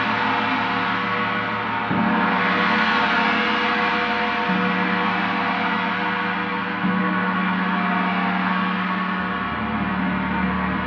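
Paiste planetary gong tuned to Saturn (D, 147.85 Hz) ringing in a continuous, dense wash of overtones. It is struck softly again about every two to two and a half seconds, and the strokes about two and seven seconds in lift the level most.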